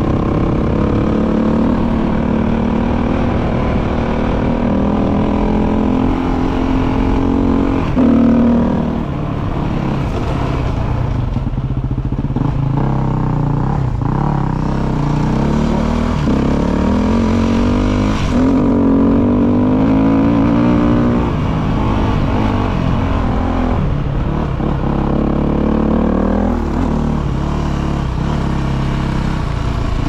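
KTM motorcycle engine running under way. Its pitch climbs several times as it accelerates and then drops back as the rider shifts or eases off, with a sharp jump in loudness about eight seconds in.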